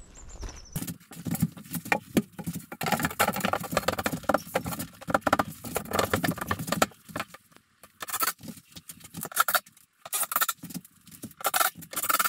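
Clattering, knocking and scraping of a large Quick-Deck finishing board being handled and pushed up into place against a ceiling, then a run of short separate bursts in the second half.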